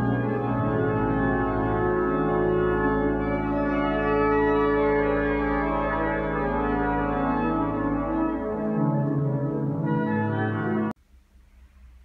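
Pipe organ playing full, sustained chords over a deep pedal note; the bass note drops out about nine seconds in and the music stops abruptly about two seconds later.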